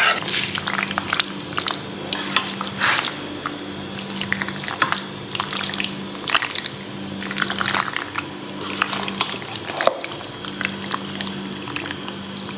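Spoon stirring and mixing cooked pasta with minced meat and tomato sauce in a stainless-steel pot: wet stirring and scraping, with irregular clicks of the spoon against the pot. A steady low hum runs underneath.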